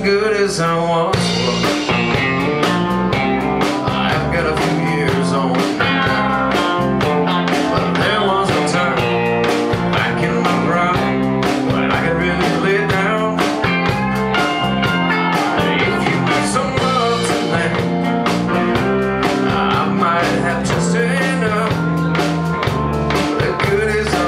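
Live country band playing on electric guitars, bass and drums, with a steady drum beat.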